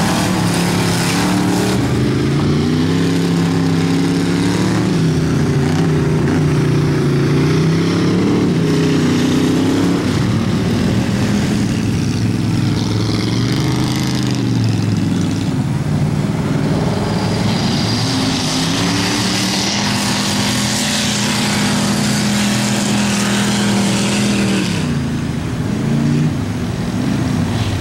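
Rear-wheel-drive ice race car engines running hard, their pitch rising and falling again and again as the cars accelerate down the straights and lift for the corners.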